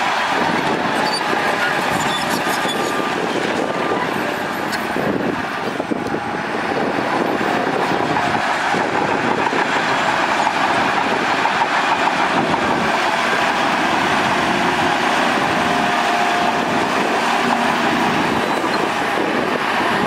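Shantui DH17 crawler bulldozer running under load, its diesel engine droning and steel tracks clanking steadily, with a wheel loader's engine running behind it. A brief squeal rises out of the noise late on.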